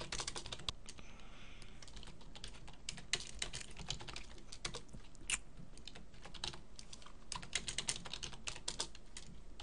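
Computer keyboard being typed on: irregular runs of quick keystrokes with short pauses between them.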